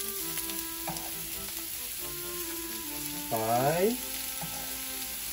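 Seasoned chicken tenders sizzling steadily as they fry in oil in a skillet, with a light tap or two of metal tongs as they are laid in. A short rising voice-like sound about three and a half seconds in.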